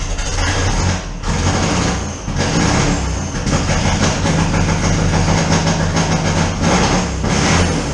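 A vintage four-cylinder land-speed race car engine that has just fired up, running loud and rough. It dips briefly about a second in and again near two seconds, then settles into a steady run.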